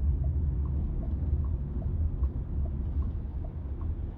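Car turn-signal indicator ticking in the cabin, an even tick-tock of two alternating clicks about two to three a second, as the car makes a U-turn. Under it runs the steady low rumble of the tyres and road.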